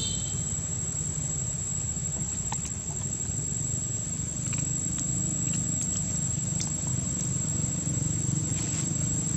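Steady low drone of a motorbike engine running, with a few faint clicks over it.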